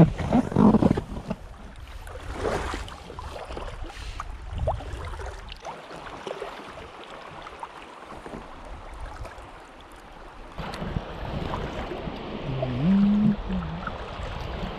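Water washing around an inflatable packraft as it is paddled and drifts downstream, with knocks and splashes from the paddle in the first few seconds. Wind buffets the microphone.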